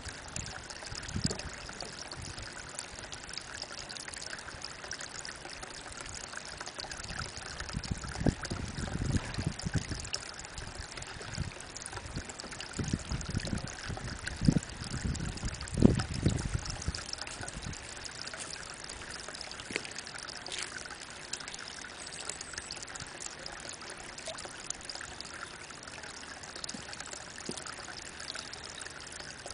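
Spring water falling in a thin stream from a mossy rock into a pond: a steady trickle and splash. From about 7 to 17 seconds in, bouts of low rumbling come and go under it, giving the loudest moments.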